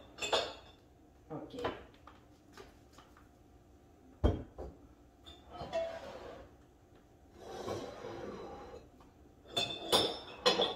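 Ceramic mugs and small kitchen decorations being set down and moved on a countertop: scattered clinks and knocks, with one sharp knock about four seconds in, and softer handling noise in between.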